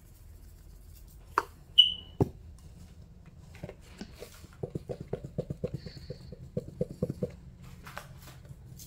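Plastic seasoning shaker shaken over chicken, a quick even run of about five rattling shakes a second for a few seconds. It is preceded by a few clicks and knocks of containers being handled, one a short sharp high click, and more clicks follow near the end.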